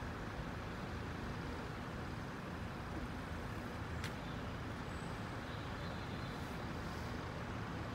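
Steady low rumble of road-vehicle engines and traffic, with a brief sharp click about four seconds in.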